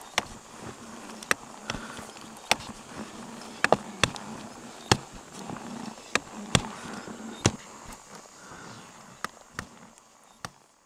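Footsteps crunching on hard, frozen snow: irregular sharp crunches, about one or two a second, over a faint steady hum, growing weaker near the end.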